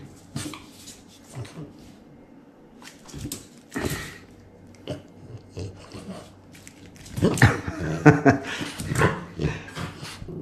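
A dog in excited play: a few light scattered knocks, then a quick run of short vocal calls about seven seconds in.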